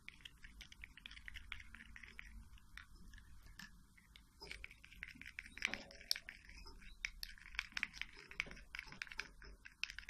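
Plastic syringe stirring thick hand-rearing formula paste in a small plastic cup: faint, quick clicks and scrapes of the tip against the cup, busier and louder from about halfway.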